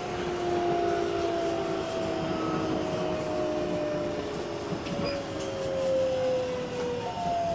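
Toyo GTO-VVVF inverter and traction motors of a Keikyu 1700 series train whining under the running noise, the whine sliding slowly down in pitch as the train slows. A new, higher falling tone cuts in near the end.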